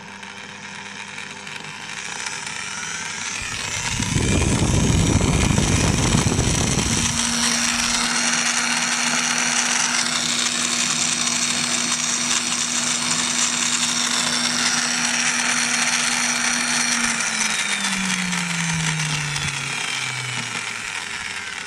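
Electric drill with a brushed commutator motor under tachometer feedback speed control, running with a motor whine that rises in pitch over the first few seconds, holds steady, then falls near the end as the speed knob is turned down. A loud low rumble lasts a few seconds, about four seconds in.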